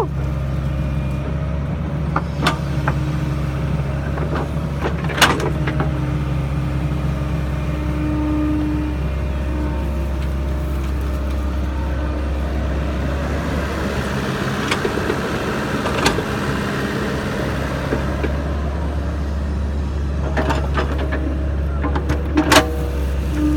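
Sany SY55C mini excavator's diesel engine running steadily under work, with scattered sharp knocks and clanks. Around the middle the low drone thins out for a few seconds and a rougher, higher sound comes up, then the steady drone returns.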